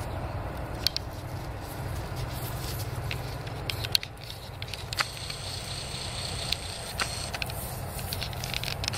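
Footsteps walking through dry grass and dirt: scattered crackles and sharp clicks over a steady low rumble. A thin high steady tone comes in about halfway through and stops about two seconds later.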